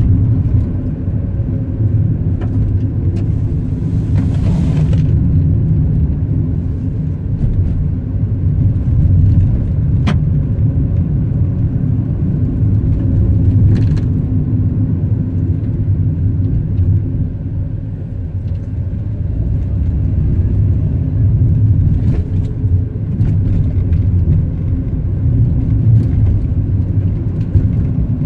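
Car driving along a mountain pass road, heard from inside the cabin: a steady low rumble of engine and tyres, with a few sharp clicks and a brief hiss about four seconds in.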